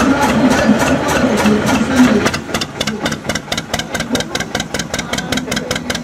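Small steam locomotive 'Courage' working as it moves off: a rougher, louder stretch at first, then quick, even exhaust beats, about seven a second, from about two seconds in.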